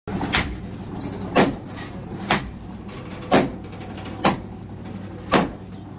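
A heavy long-handled hammer striking metal by hand in a slow, steady rhythm: six blows about a second apart, some leaving a brief ring.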